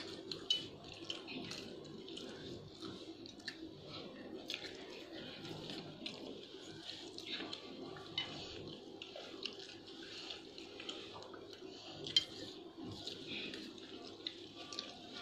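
Metal spoons scraping and clinking against steel plates of rice, irregular sharp clicks throughout, over a steady low background hum.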